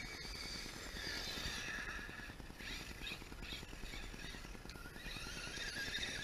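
Electric 1/8-scale RC off-road car driving, its motor and drivetrain whining and shifting in pitch as it speeds up and slows.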